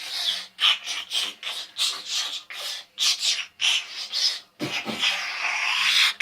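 A young boy's vocal sound effects imitating a fighting Transformer robot: rapid hissing, rasping mouth noises, several bursts a second, with a longer hiss near the end.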